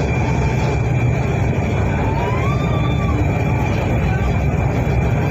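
Cabin noise of an Orange Line metro train running on elevated track: a steady low rumble with a thin, steady high whine above it.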